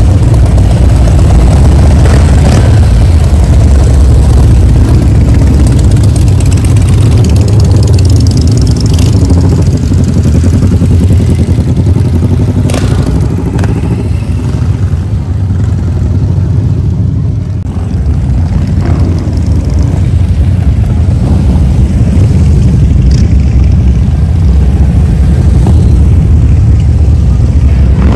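Several motorcycle engines running loud in slow rally traffic, with some revving. The level dips briefly about two-thirds of the way through.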